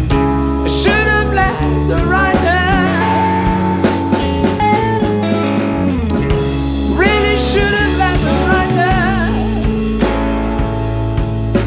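Live blues-rock band playing: drum kit keeping a steady beat under electric guitars and held keyboard chords, with a man's voice singing in phrases that come and go.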